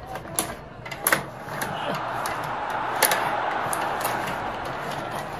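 Tabletop rod hockey game in play: sharp plastic clicks of the puck and the rod-driven player figures striking, several times, over a steady rushing rattle that sets in about a second and a half in.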